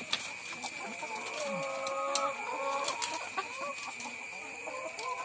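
Caged laying hens clucking, several overlapping drawn-out calls, with a few sharp clicks and a faint steady high tone underneath.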